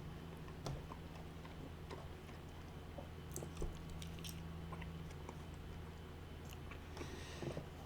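Close-miked chewing of food, with small wet mouth clicks and the odd crunch over a faint steady low hum.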